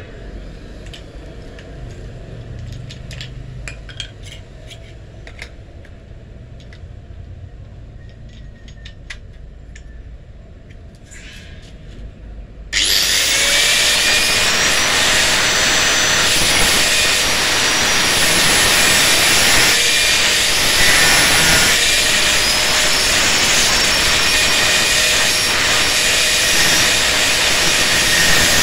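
Light clinks of tools and a grinding disc being handled for about the first half. Then an angle grinder starts abruptly and runs loud and continuous, its abrasive cutting disc grinding into the steel of an old saw blade's toothed edge.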